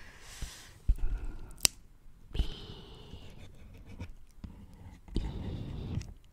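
Fingernails tapping and scratching on the front of a cardboard Bee's Wrap package. There are a few sharp taps in the first half, then a stretch of scratching about five seconds in.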